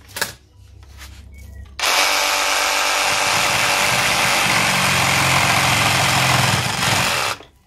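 Batavia 18 V cordless reciprocating saw cutting through a 4 cm thick wooden plank, cutting easily. The cut starts abruptly about two seconds in, runs steadily for about five seconds, and stops shortly before the end.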